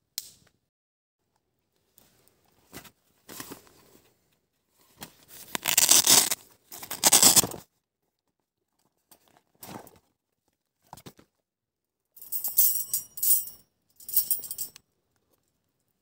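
Camping gear being handled: a fabric pouch's hook-and-loop flap ripped open in two loud rasps about five to seven seconds in, then a wire folding grill grate rattling and clinking as it is taken out and unfolded, near the end.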